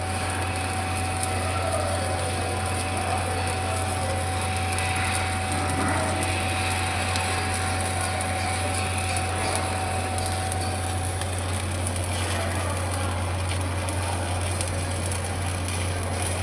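Pipe welding work: a steady low machine hum under a crackling hiss, with a thin steady whine that stops about eleven seconds in.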